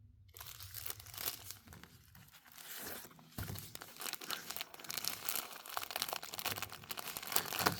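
Packaging of a diamond painting kit crinkling and rustling as it is handled, in a dense run of irregular crackles.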